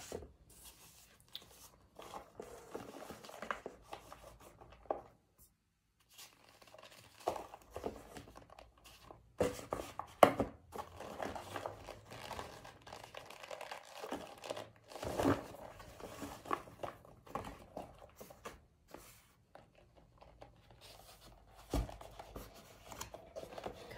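Cardboard cornstarch box and its paper lining being torn and crinkled open around a baked cornstarch brick, in irregular rustling spells with a few sharp knocks.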